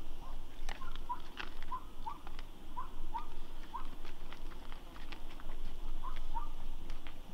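A young wild boar feeding on the ground: a run of sharp crunching clicks as it chews, mixed with short, high squeaks repeated every half second or so.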